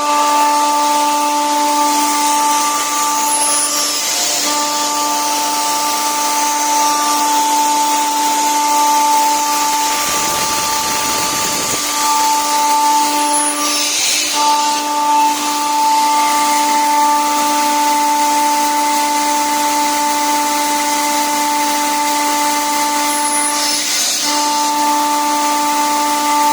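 Kaeser ASD 40 rotary screw air compressor running with a steady whine, with a brief hiss roughly every ten seconds.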